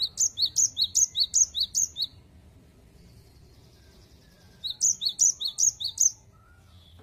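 Cinereous tit (gelatik batu) singing its repeated two-note 'wucit wucit' song, each phrase a higher note dropping to a lower one. A quick run of about six phrases, roughly three a second, then a pause of about two and a half seconds, then another run of about five.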